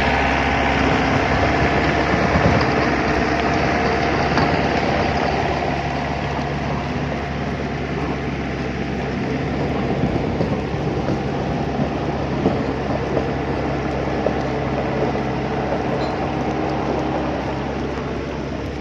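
An engine running steadily with a low, even hum, easing slightly in level after about five seconds.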